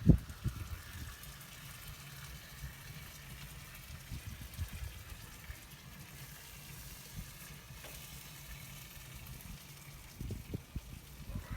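Faint steady sizzling from sauced pork spare ribs cooking on an offset smoker, over an uneven low rumble, with one sharp knock right at the start.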